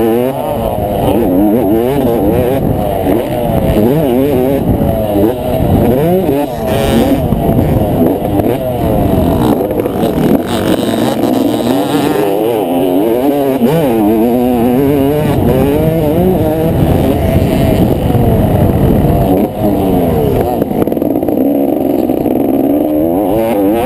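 Motocross dirt bike engine heard up close from a camera on the bike, revving up and dropping back again and again as the rider accelerates, shifts and backs off through the turns. The sound is muffled, with little above the engine's lower tones.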